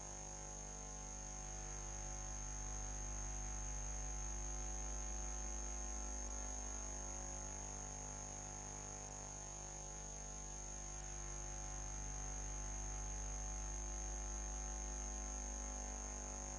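Steady electrical hum with a thin high-pitched whine, swelling slowly and easing twice, with no other sound standing out.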